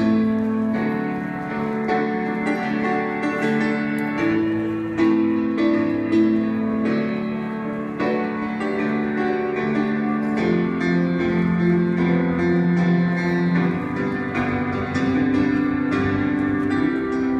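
Keyboard played solo with a piano sound: held chords and notes that change every second or two.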